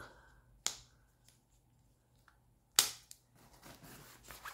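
A money clip and a fabric money belt being handled. There is a sharp click, then a louder snap about three seconds in, followed by soft rustling of fabric.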